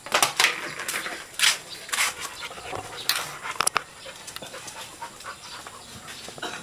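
Dog panting close to the microphone in quick breathy puffs. The panting is strongest for the first four seconds, then fainter.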